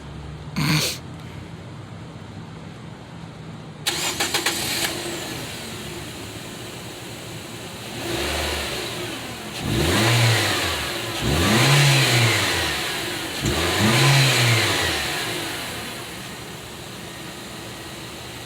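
2013 Nissan Sentra's four-cylinder engine starting about four seconds in and settling to idle, then revved four times, each rev rising and falling back; the last three are the loudest. A brief sharp sound comes just under a second in.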